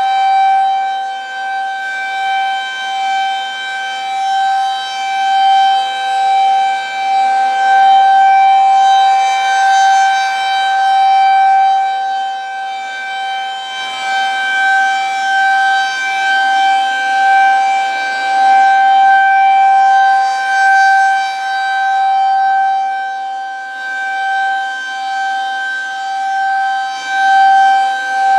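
Federal Signal 2001-SRN rotating electromechanical siren, turning at 6 RPM, sounding a full alert: one steady tone that holds its pitch while the loudness swells and fades as the rotating horn sweeps past.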